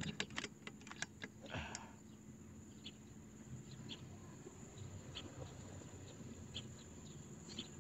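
Mostly quiet, with a few light clicks in the first couple of seconds and faint scattered ticks after. Right at the end comes the sudden sharp crack of the Oment Sprint X PCP air rifle firing a 13.6 g slug.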